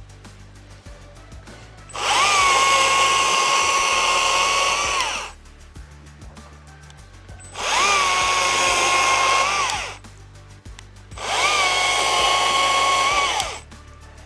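STIHL MSA 60 C-B 36-volt battery chainsaw triggered three times, cutting limbs off a log. Each run is a steady electric whine that climbs quickly to speed, holds for two to three seconds, and winds down when the trigger is released.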